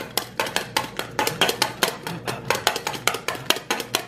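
A knife point jabbed rapidly onto a stone countertop between the fingers of a splayed hand, the five-finger knife game: quick, sharp taps, about six a second, unevenly spaced.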